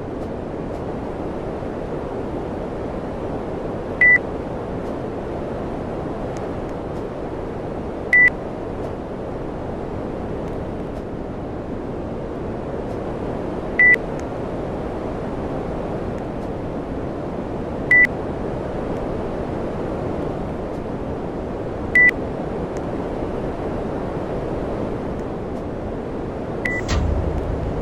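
Panasonic air conditioner running with a steady rush of airflow, giving six short beeps a few seconds apart, typical of the unit acknowledging remote-control presses. Near the end a low hum starts.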